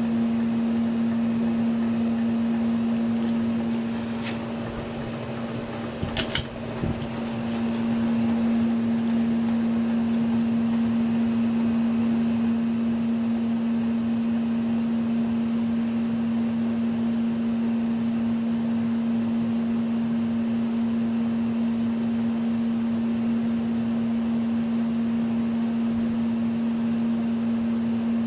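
1987 Lasko 3600L 36-inch ceiling fan running with a steady motor hum. A few sharp clicks come about four to six seconds in, where the sound briefly dips.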